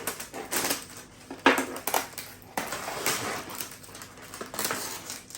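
Plastic food packaging crinkling and rustling in the hands as food is moved into a baking tray, with a sharp knock about one and a half seconds in.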